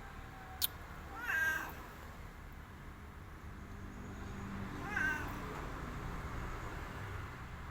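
Domestic cat meowing twice: a call about a second in and a shorter one about five seconds in. A sharp click comes just before the first meow.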